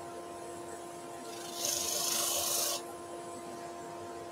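Worn sanding disc spinning on the lathe with a steady hum. About a second and a half in, a small wooden figure is pressed against the disc for just over a second, giving a loud rasping hiss of coarse sanding.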